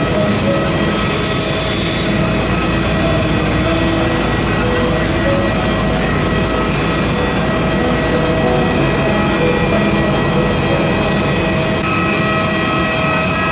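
Steady whine and rush of a parked Airbus A320's auxiliary power unit running, with several steady high tones over it. The low rumble drops away near the end.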